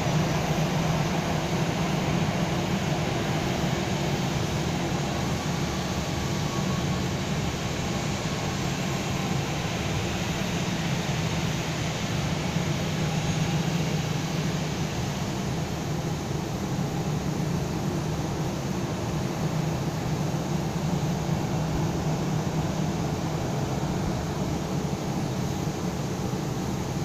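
Airliner jet engines running at low taxi power as the planes move about the apron: a steady hum with hiss that holds level throughout, with no take-off surge.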